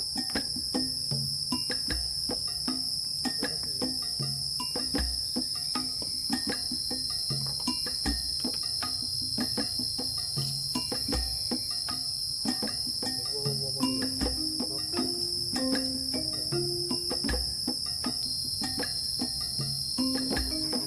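Steady chorus of forest insects, a constant high-pitched buzzing, with frequent small clicks and knocks and faint low notes underneath.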